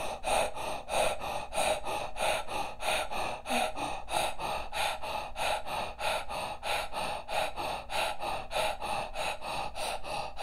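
A woman breathing rapidly and evenly in and out through a rounded mouth, the inhale as long as the exhale, in a steady rhythm of about three to four breath sounds a second. This is the yogic 'self-care breath' exercise.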